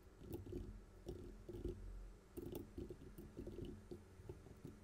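Typing on a computer keyboard: a run of faint, irregular key taps.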